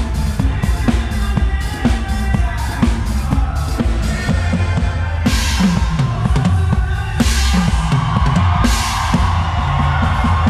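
Live band playing an up-tempo disco groove with the drum kit loudest: a steady driving beat of kick, snare and hi-hat, then three cymbal crashes in the second half with tom fills falling in pitch between them.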